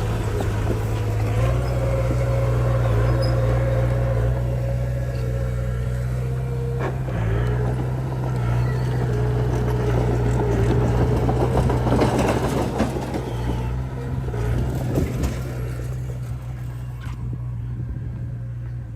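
Heavy diesel earthmoving machinery engine running under load. The engine note steps up about a second and a half in and dips briefly near the middle. A few metallic knocks come through after about twelve seconds, and the sound eases off toward the end.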